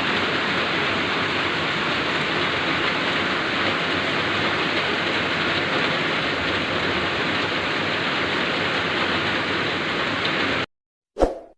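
Heavy rain pouring down in a steady, dense hiss. It cuts off abruptly near the end and is followed by a single short chime.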